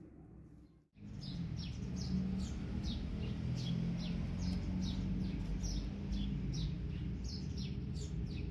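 Small birds chirping repeatedly, short high falling chirps two or three times a second, over a steady low hum; the chirping starts about a second in.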